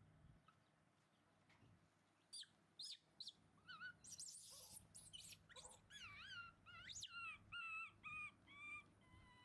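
Baby monkeys squealing and cooing with high, wavering calls. The calls come short and scattered at first, then in a quick run through the second half. A brief hissing noise comes about four seconds in.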